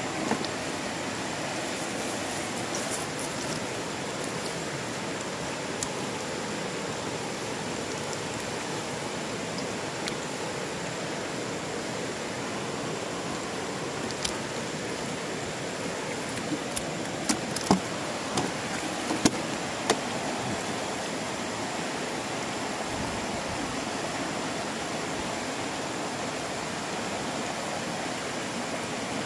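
Fast, shallow river rushing steadily over rocks, with a few sharp clicks and taps around the middle.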